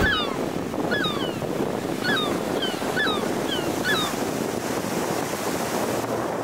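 Ocean surf washing in, a steady rush of waves. A bird gives a string of short chirping calls, about seven, over the first four seconds.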